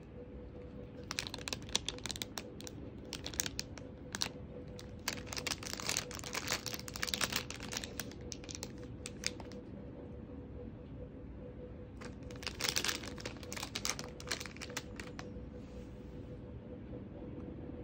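Clear plastic packaging crinkling as it is handled, in several spells of rustling, over a faint steady hum.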